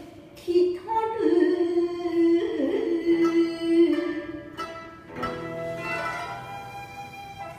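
Shigin poem chanting with plucked-string accompaniment: a voice holds long, slightly wavering notes, then drops out about five seconds in while the plucked strings carry on alone.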